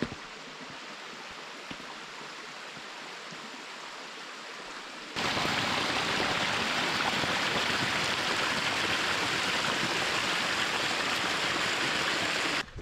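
Rushing water of a stream, a steady even rush; about five seconds in it jumps suddenly louder and fuller.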